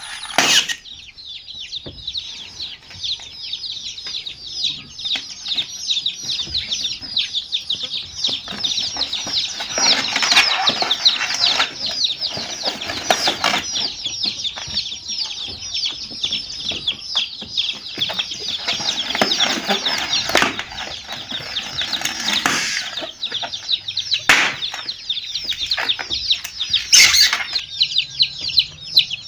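A crowd of baby chicks peeping without a break: many high, short, falling calls overlapping. A few sudden knocks or scuffles are heard over them.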